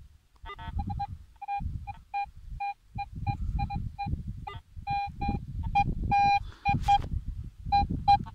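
Metal detector sounding a series of short, irregular beeps of one mid-pitched tone, some held a little longer, as a clod of soil is passed over its search coil: the detector is signalling a metal target in the clod. A low rumbling noise runs beneath the beeps.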